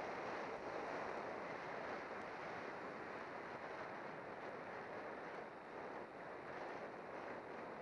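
Steady rush of wind over a bike-mounted camera's microphone as a road bike descends at speed, an even noise with a slight dip about six seconds in.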